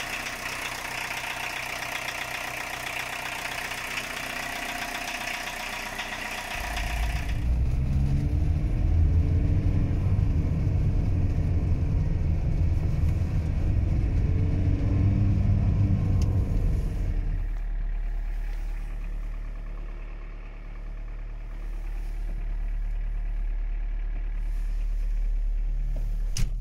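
1989 VW Caddy drivetrain running with a noise that the owner puts down to a bad gearbox bearing. For the first few seconds there is a higher-pitched whine and hiss. About seven seconds in, a loud low rumble starts and rises and falls in pitch for about ten seconds, then settles into a quieter steady low hum.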